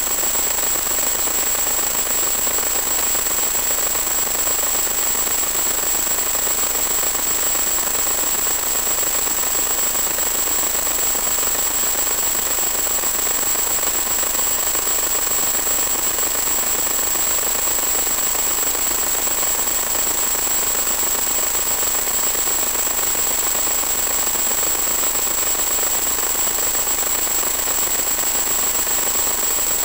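Steady hiss with a constant high-pitched whistle, unchanging throughout: static on the audio channel of a 1.2 GHz analog FPV video link.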